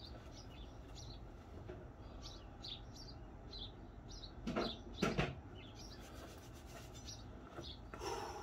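Small birds chirping repeatedly in short high calls, with two brief louder sounds from an unseen source about halfway through.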